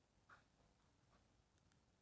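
Near silence: faint room tone with a few soft ticks, the clearest about a third of a second in.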